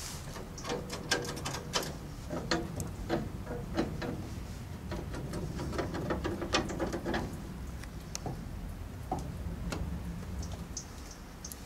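Irregular metallic clicks and clanks from valve handles and levers being worked on a fire engine's pump panel, over a low steady rumble. The clicks thin out near the end.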